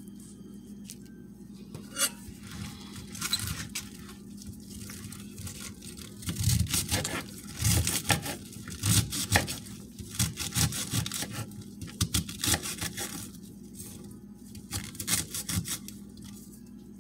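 Kitchen knife chopping cabbage on a wooden cutting board: uneven runs of cuts through the leaves and knocks of the blade on the board, busiest in the middle, over a low steady hum.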